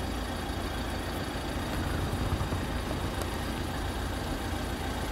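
A van's engine idling with a steady low rumble, heard from inside the cab while the van stands at a traffic light.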